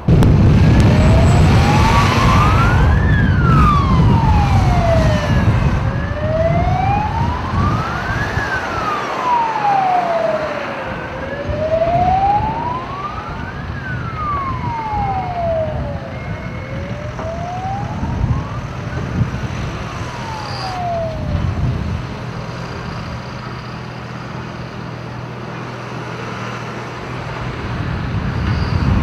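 Fire engine siren on a slow wail, sweeping up and down about once every five seconds, fading out after about four sweeps. A low rumble sits under it in the first several seconds.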